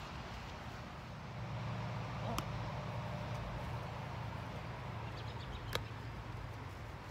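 Steady low outdoor rumble with light hiss, broken by two sharp clicks, one about two and a half seconds in and one near six seconds.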